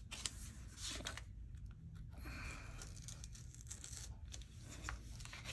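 Craft knife blade scoring and cutting through paper in a series of short scratchy strokes. The blade is dull, so it drags and tears the paper rather than slicing cleanly.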